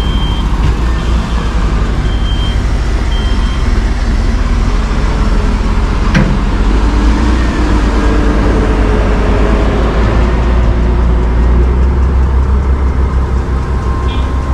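Heavy machinery running steadily with a deep rumble, and a backup alarm beeping a few times in the first three seconds.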